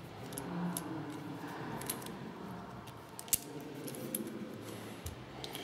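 Light metallic clicks and rattles from a Wera Zyklop ratchet with a quick-release bit holder being handled and turned in the hands, with a few sharper single clicks spaced about a second and a half apart.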